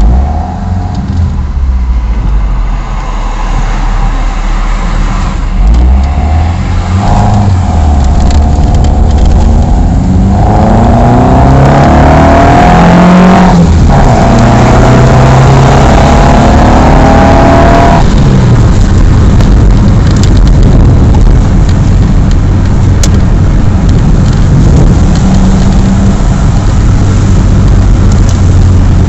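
Ford Escort Mk3 1.6 four-cylinder engine on twin Weber DCNF 40 carburettors, heard from inside the cabin as the car pulls away and accelerates on a freshly set air-fuel mixture. The engine note climbs with the revs, breaks briefly about halfway through, then settles to a steady cruise.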